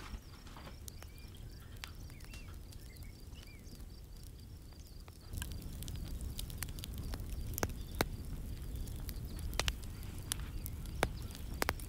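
Faint bird chirps over a quiet outdoor hush. About five seconds in, a bonfire of branches, dry grass and paper starts crackling, with sharp irregular pops over the low sound of the flames.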